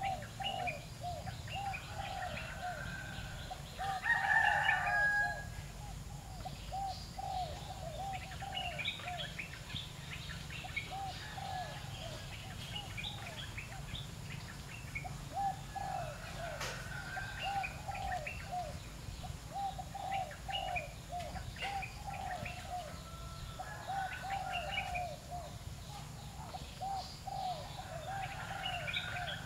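Birds calling outdoors: a steady string of short repeated calls and scattered high chirps, with a louder call about four seconds in that is likely a rooster crowing.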